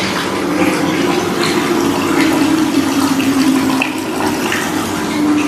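Water running steadily from a wall tap into a plastic bucket, the stream splashing onto a cloth at the bottom as the bucket fills.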